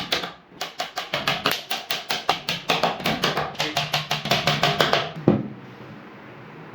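Rapid, even tapping, about six blows a second, consistent with a hammer working on wood, with a short break about half a second in and one heavier blow near the end.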